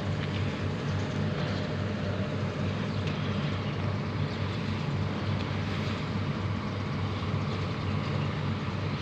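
Diesel engine of a Jonyang JY623E excavator running steadily.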